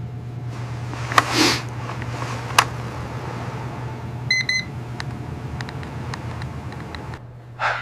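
Two short electronic beeps from a medical device about four seconds in, over a steady low electrical hum. A few sharp clicks and a short hiss come in the first three seconds.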